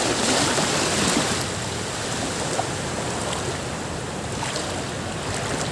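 Shallow sea water rushing and washing around the legs of someone wading in the surf, louder for about the first second and a half, then steady.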